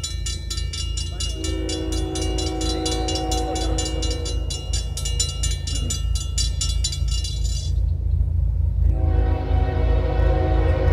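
Railroad grade-crossing bell ringing rapidly while an approaching train sounds its air horn in two long chords, one starting about a second in and one near the end. The bell stops about eight seconds in, once the crossing gates are down, and a steady low rumble runs underneath.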